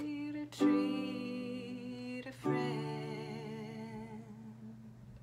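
Classical guitar with a capo: two chords strummed about two seconds apart, each left to ring and fade away. A held sung note ends about half a second in.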